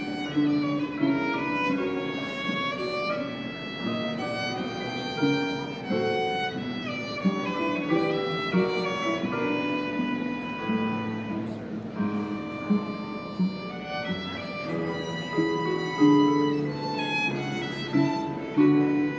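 A violin, cello and digital piano trio playing together, the violin carrying the melody over the cello and piano.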